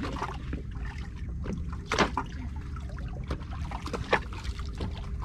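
Water lapping against the side of a small boat, with a steady low rumble and a few sharp slaps, the loudest about two seconds in and another near four seconds.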